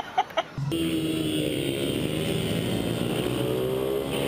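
A woman laughing in short rhythmic bursts, cut off about half a second in by a dirt bike's engine running steadily, its pitch rising and falling a little as the rider works the throttle.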